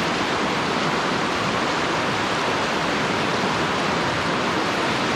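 River rapids rushing over rocks in shallow pocket water: a steady, even rush of whitewater close by.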